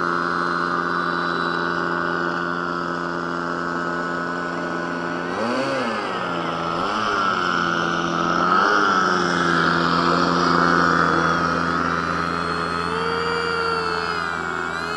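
Desert Aircraft DA-50 single-cylinder two-stroke petrol engine of an RC Yak 55M aerobatic plane in flight, buzzing steadily. Its pitch swoops up and down a few times about halfway through.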